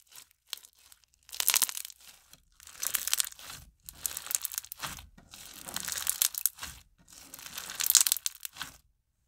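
Beaded fishbowl slime being squeezed and pressed by hand, crunching and crackling with bubble pops. It comes in about five bursts, roughly one every second and a half.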